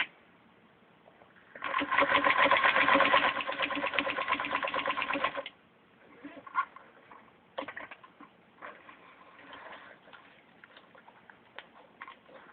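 Singer 221 Featherweight sewing machine with a walking foot attachment, running and stitching through fabric and padding in a fast, even clatter lasting about four seconds. Scattered light clicks and knocks follow once it stops.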